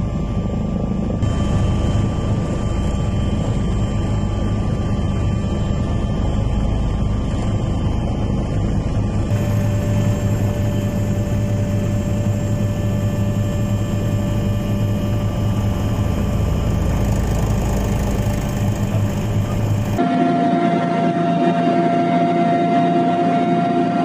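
Steady drone of an aircraft's engines and rotor or propeller heard from on board, a low hum with a few steady tones on top. Its tone changes abruptly about a second in, about nine seconds in and about twenty seconds in.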